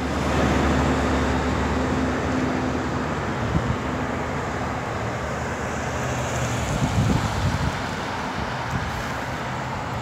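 Road traffic on a town street: a steady rush of passing cars, with an engine hum that is strongest for the first few seconds and then fades.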